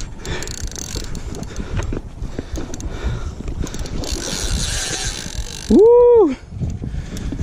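Penn Battle 5000 spinning reel being cranked against a heavy fish, its handle and gears ticking steadily. About six seconds in, a loud, short wordless shout rises and falls in pitch.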